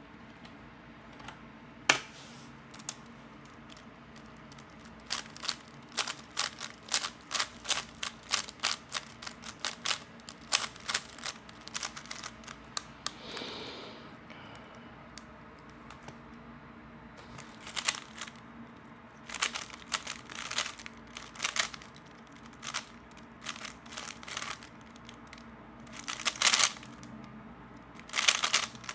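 A 3x3 Rubik's Cube being turned fast in a speedsolve, its layers clicking in quick runs several times a second, broken by short pauses and a few sharper single clacks.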